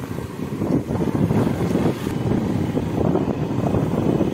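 Wind buffeting the microphone on a moving motorcycle, with the engine running underneath.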